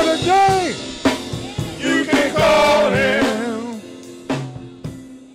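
Men's gospel vocal group singing with a drum kit, the song winding down: a couple of last sung phrases over sharp drum hits, then the music fades away near the end.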